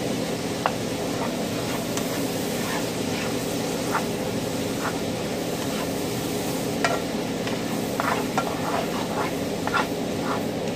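Fajita steak and vegetables sizzling in a skillet while a wooden spatula stirs them, with scattered scrapes and taps of the spatula on the pan that come more often near the end. A steady low hum runs underneath.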